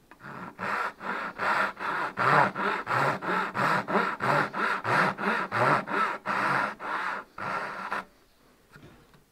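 Japanese dozuki saw cutting a dovetail in wood with quick, even strokes, about two to three a second. The sawing stops about eight seconds in.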